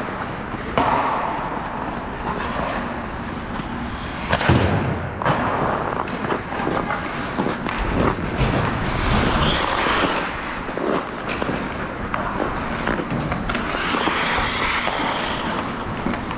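Sounds of a 3v3 game in play: a continuous scraping rush broken by many sharp knocks, the loudest about four seconds in.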